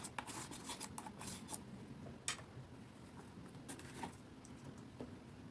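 Faint rustles and light clicks of a cardstock box being handled, with one sharper tick a little over two seconds in.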